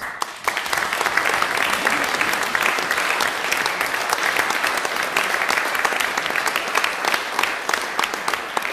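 Audience applauding, a dense steady clatter of hand claps that starts all at once and thins slightly near the end.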